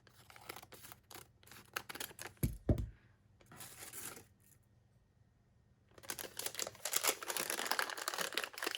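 Crinkling and rustling of a plastic craft packet being handled and opened, with scattered clicks and two low thumps about two and a half seconds in. After a short lull, dense crinkling runs through the last few seconds.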